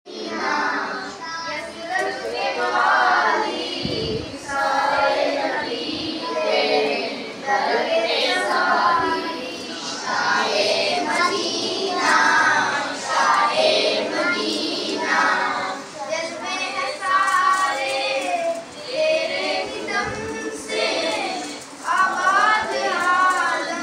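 A boy singing a naat, an Urdu devotional song praising the Prophet, solo voice in phrases with short pauses between lines.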